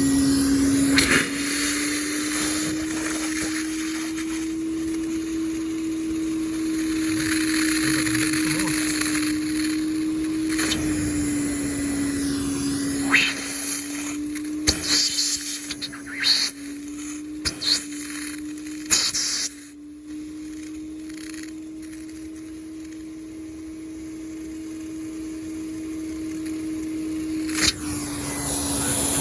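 Wet/dry vacuum motor running steadily with its hose held to the outdoor end of an air conditioner's clogged condensate drain line, sucking the water and clog out. Its hum shifts slightly in pitch a few times, with several sharp knocks in the middle, and it gets quieter about two-thirds through before building back up.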